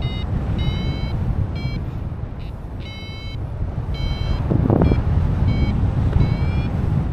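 Paragliding variometer sounding its climb tone: short high beeps at uneven intervals, several sliding upward in pitch, signalling the glider is in rising air. Wind rushing over the microphone runs underneath.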